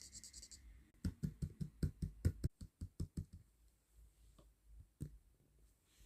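A quick, even run of about a dozen sharp clicking taps, roughly five a second, starting about a second in, followed by two single clicks near the end.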